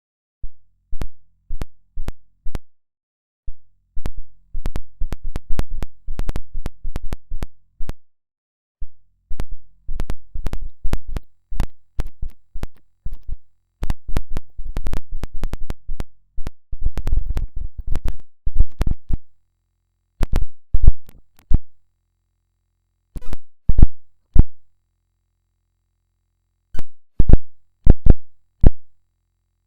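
Synthesized electronic sound effect stacked over itself many times. It comes out as irregular sharp digital clicks and pops over a faint low hum. The clicks are densest in the first two-thirds and thin to scattered clusters with silent gaps near the end.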